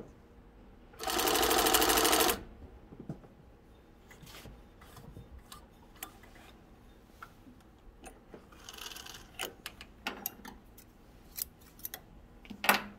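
Speedway SW-1341VS compound-feed cylinder-bed industrial sewing machine stitching a seam through one layer of thick, hard leather in one fast run of about a second and a half, starting about a second in. Light clicks and handling sounds follow, with a sharp click near the end.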